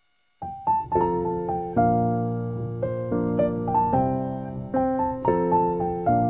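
Background piano music: a gentle melody of struck notes over chords, starting about half a second in after near silence.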